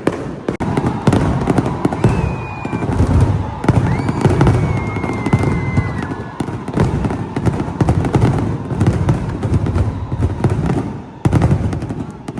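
Fireworks display going off in rapid succession: dense crackling and sharp bangs over deep booms, with a high whistle about two seconds in and a longer one from about four to six seconds in.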